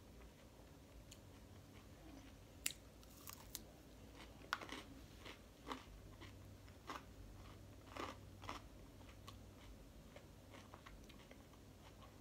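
Faint chewing of a mouthful of salad with croutons and chicken pieces: a scatter of small crisp crunches and mouth clicks from about two to nine seconds in, quieter after that.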